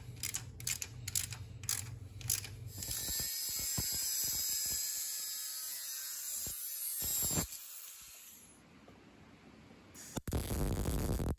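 A few sharp metallic clicks from work on a hose fitting. Then an angle grinder cuts through a metal pipe for about four seconds and spins down. Near the end, a MIG welder crackles briefly.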